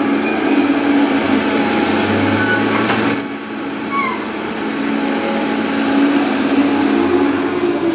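Heavy diesel earthmoving machinery running steadily, the engine note wavering slightly with load as sand is worked. A short high squeal sounds about three seconds in.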